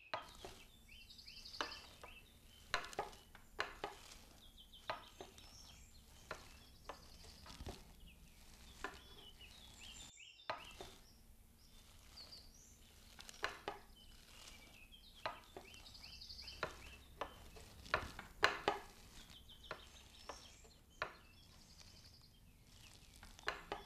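Red deer stags' antlers clacking and knocking together as young bulls spar: faint, irregular sharp strikes with short pauses between them.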